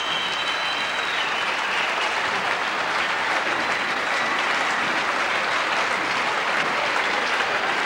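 Crowd applauding steadily in a gymnasium.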